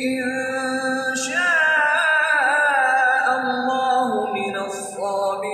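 Quran recitation played over a pillar-mounted public-address loudspeaker: one chanted voice drawing out long, wavering melodic phrases, a long phrase starting about a second in and a new one beginning near the end.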